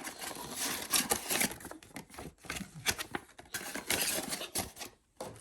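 Packaging and small accessories being handled as a box is gone through: an irregular rustle with scattered light clicks and taps, briefly stopping near the end.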